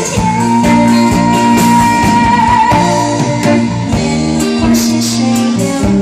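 Live band playing a pop song on electric guitars, bass, keyboard and drums, with a long high note held for a couple of seconds near the start that wavers as it ends.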